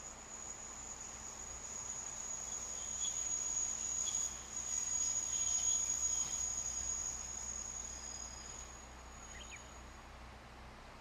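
An insect singing one shrill, steady note that swells in loudness for several seconds and then fades away near the end.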